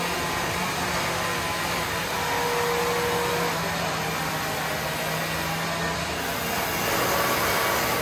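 Hand-held electric grinder running steadily against a wooden carving, a steady whine over a rushing hiss.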